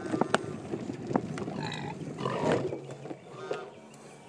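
Farm animals calling: a few short pitched cries, the strongest about a second and a half in, with another near the end. Sharp knocks and rattles come in between.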